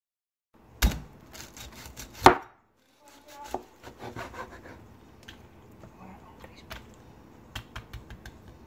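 A knife cutting through the crisp, blistered skin of oven-roasted pork belly on a cutting board. Two sharp knocks about a second and a half apart, the second the loudest, are followed by a run of small crunches as the blade works through the crackling.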